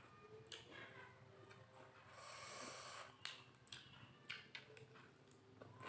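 Faint eating sounds: scattered small clicks and smacks from chewing, with a short nasal breath about two seconds in.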